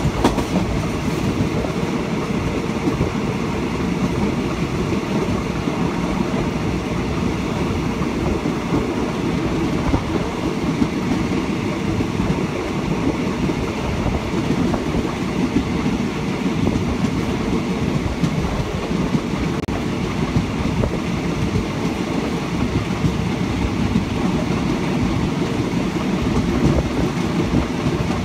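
A Thai passenger train in motion, heard from inside the carriage: a steady low rumble of wheels on rails, with occasional light knocks.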